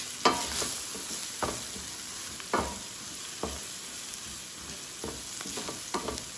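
Chopped onions and turmeric frying in oil in a stainless steel pan, a steady sizzle, with a wooden spatula stirring and scraping the pan about once a second.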